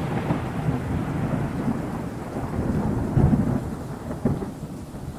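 Thunder rumbling and slowly dying away over steady rain, with a fresh roll of thunder about three seconds in.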